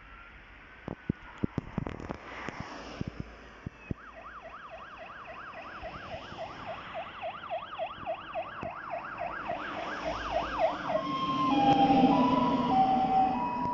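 Fire engine siren on an emergency run, sweeping quickly up and down about two to three times a second and growing louder as it approaches. About eleven seconds in it switches to a high-low two-tone as the truck passes close, its engine and tyres loudest at that moment. A few sharp clicks come through in the first few seconds.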